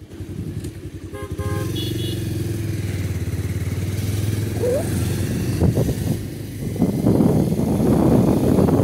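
A motor vehicle's engine running steadily, with a quick series of short horn beeps about a second in. A louder rushing noise builds near the end.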